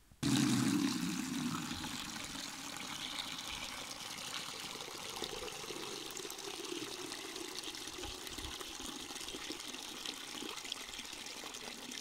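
Water from a village standpipe spout pouring into a bucket: a steady splashing stream that starts abruptly, is loudest in the first second, then settles to an even pour.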